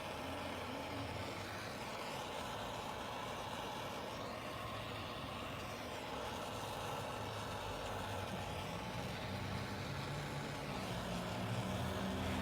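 Steady rushing noise with a low engine hum that grows louder over the last few seconds.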